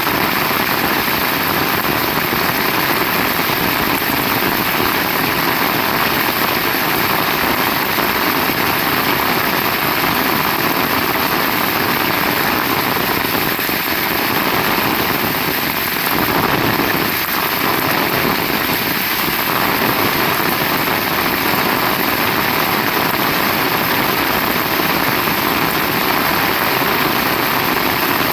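Heavy rain falling steadily: a dense, even hiss of rain, swelling slightly about halfway through.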